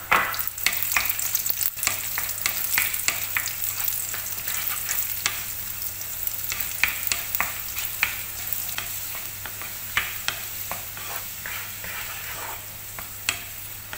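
Raisins frying in hot ghee: a steady sizzle with many small sharp pops as the raisins puff up, and a wooden spoon stirring and scraping the pan.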